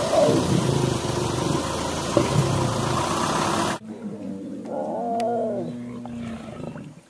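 A group of lions growling as they feed together in shallow water. The sound drops off abruptly a little over halfway through, leaving a single drawn-out growl that bends in pitch.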